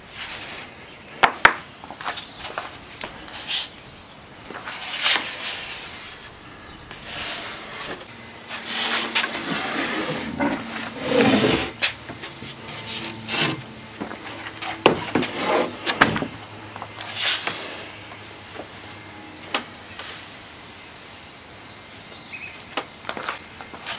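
Handling noise from laminating two epoxy-wetted plywood transom halves: a plastic spreader scraping over the wet wood, then a plywood panel lifted and laid down onto the other, with scattered wooden knocks and clicks. The louder scuffing and rubbing falls from about a third of the way in to a little past the middle.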